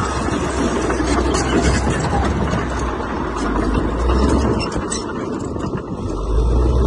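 Diesel engine of heavy earthmoving machinery running steadily with a deep drone, which eases off for a second or so past the middle and then picks up again, louder, near the end.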